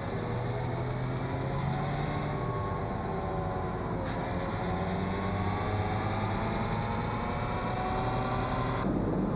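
VW Golf running on a rolling-road dynamometer, engine and drivetrain accelerating with a whine that climbs in pitch. The whine drops about four seconds in, then climbs again. The sound changes abruptly near the end.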